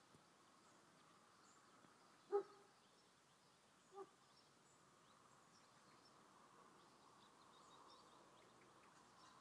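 Quiet outdoor ambience with faint bird chirps, and two short animal calls about a second and a half apart, the first louder.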